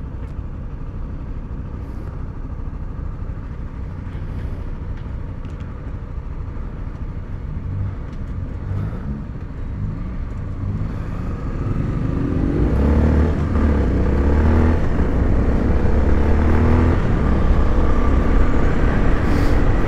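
Honda XRE 300 single-cylinder four-stroke engine idling steadily while stopped, then pulling away about twelve seconds in, getting louder as its pitch climbs and steps up through the gear changes.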